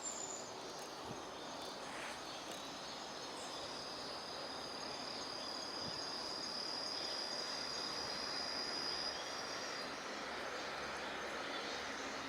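Outdoor ambience: a steady rushing background with a thin, high-pitched insect trill that starts about three seconds in and holds one steady pitch until about ten seconds.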